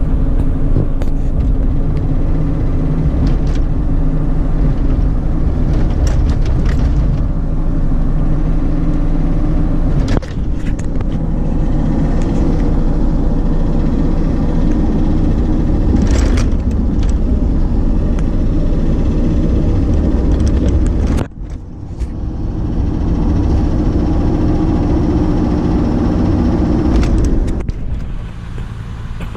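Ford F-250's 6.8-litre V10 gasoline engine running steadily with the ticking or knocking that the owner has not traced; new coils and spark plugs have not cured it. The level drops briefly a little past two-thirds of the way through.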